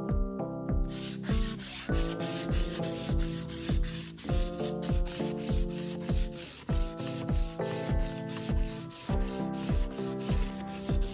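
Sandpaper block rubbed back and forth along a steel kitchen knife's edge, sharpening the blade with a dry scraping hiss, under background music with a steady beat.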